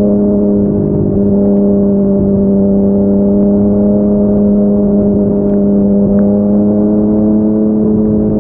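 Yamaha MT-09's inline three-cylinder engine through a Yoshimura R55 slip-on exhaust, cruising at a steady highway speed with an even drone that holds a constant pitch.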